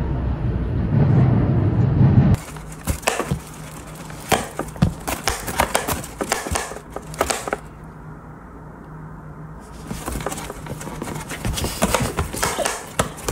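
A low rumble for about two seconds that cuts off suddenly, then a run of short scratches, taps and rustles from a black-and-white cat playing on a leather chair.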